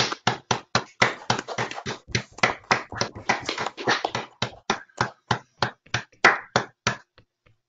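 Applause over a video call: several participants clapping, a quick run of claps that thins to a few last ones and stops about seven seconds in.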